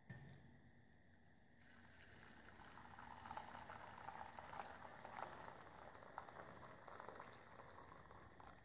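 Faint liquid sound from a stainless steel bowl of water as a spoon works in it: a fine crackly hiss that comes in about a second and a half in, builds, then fades near the end.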